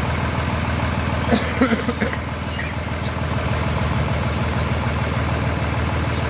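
Heavy diesel engine idling steadily, with an even low throb.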